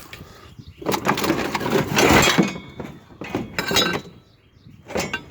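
Loose scrap and junk clattering and crashing as it is handled or tossed: a long jumbled crash about a second in, then shorter clanks with glassy clinks near the middle and end.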